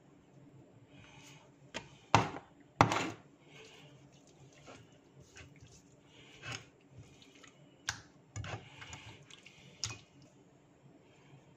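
Kitchen handling noises while seasoning raw chicken: a scattering of sharp knocks and clicks, the loudest two about two and three seconds in, with soft wet sounds of raw chicken thighs being handled and turned on a plate.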